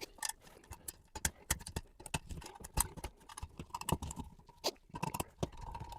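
Irregular light clicks and taps of an outlet box and its hardware being handled and fitted into a hole in drywall, a dozen or more small knocks at uneven spacing.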